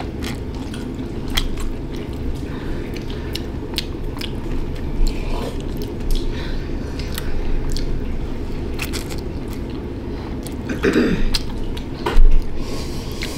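Chewing and slurping of dry ghost pepper instant cup noodles eaten with chopsticks: many small wet clicks and smacks of the mouth, with a brief voiced 'mm'-like sound about eleven seconds in.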